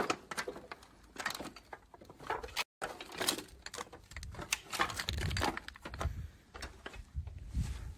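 Footsteps crunching and scuffing over gravel and rubble, a dense run of irregular clicks with a few low thumps. The sound drops out completely for a moment about a third of the way in.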